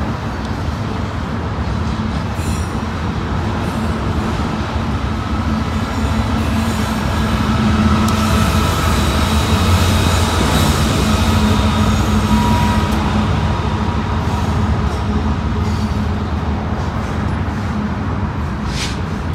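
Freight train with double-stack container cars rolling past, and a Ferromex diesel-electric remote (distributed-power) locomotive in the middle of the train. The locomotive's engine hum grows loudest about halfway through as it passes, then fades back into the rumble of the cars, with a thin high steel-wheel squeal now and then.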